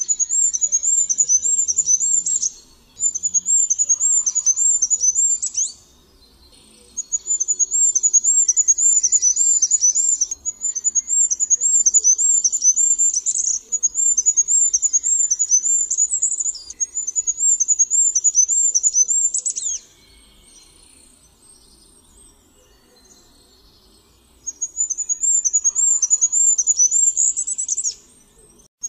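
Goldcrest singing: very high, thin songs of rapidly repeated notes, each song a few seconds long and ending in a short flourish. The songs come in quick succession, with one longer pause of about four seconds in the latter half.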